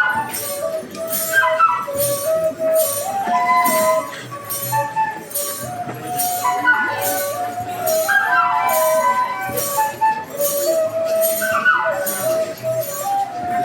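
Chivoti, a Digo side-blown flute, playing a lively melody of short runs and held notes, over njuga ankle-bell jingles shaken in a steady beat of about two a second.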